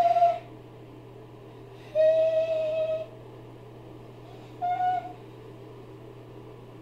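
A man crying in high, drawn-out whimpering wails. One trails off at the very start, a longer one of about a second comes a couple of seconds in, and a short one near five seconds.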